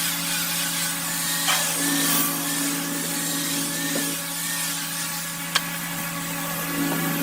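Electric power tool running steadily with a constant hum and a high hiss, with a few sharp clicks or knocks.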